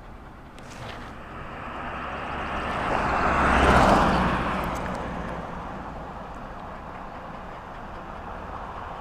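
A road vehicle passing by: a rushing engine-and-tyre noise that builds, peaks a little under four seconds in, and fades away.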